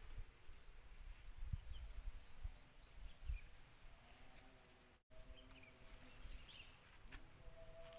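Steady high-pitched insect buzz with a few dull low bumps, twice louder than the rest.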